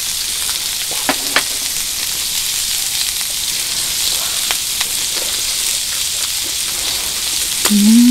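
Beef sizzling in a frying pan: a steady hiss of fat and juices, with a couple of light clicks about a second in. Near the end a short hummed "mm" of a voice.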